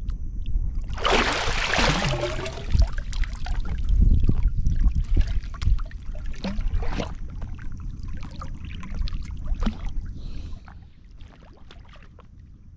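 Water splashing and sloshing at a small fishing boat, with scattered knocks and clatter. A loud splash comes about a second in, and it all grows quieter near the end.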